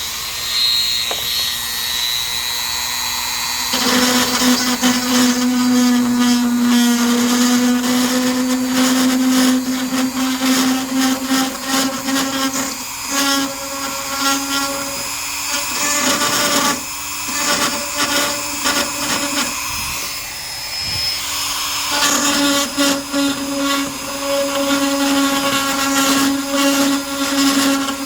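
Dremel rotary tool running at high speed while it grinds down the yellowed LED halo of a BMW headlight. A high steady whine gives way about four seconds in to a louder, lower pitch that wavers and dips as the tool is pressed on and eased off the part.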